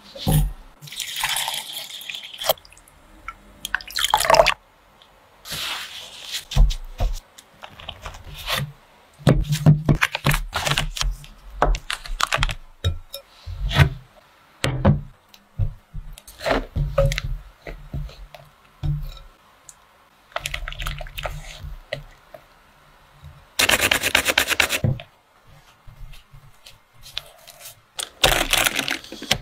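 Food-preparation handling sounds: a glass bowl and ingredients handled on a tabletop, giving a string of separate taps, knocks and clinks, with plastic cling film rustling in short bursts toward the end.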